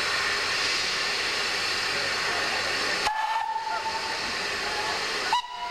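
Steam locomotive hissing steam steadily, with a short whistle note about three seconds in and another just at the end.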